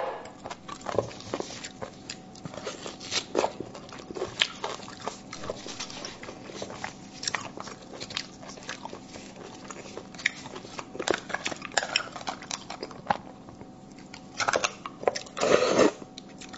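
Close-miked eating of spicy braised beef bone marrow: wet chewing and mouth smacks with many short clicks as the marrow is scraped out and sucked from the bone. A louder stretch of about a second comes near the end.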